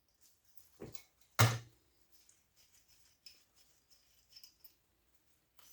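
A few light metal clicks and taps from working a small bolt loose on a piece of brass scrap, with one louder knock about a second and a half in.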